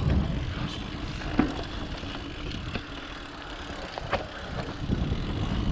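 Mountain bike rolling down a dirt trail: steady low rumble of tyres and wind on the mount, with sharp knocks from the bike, about one and a half and four seconds in.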